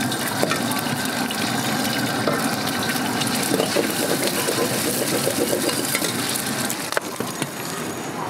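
Eggs sizzling and spattering in hot oil in a wok, with a metal ladle scraping and stirring them against the pan.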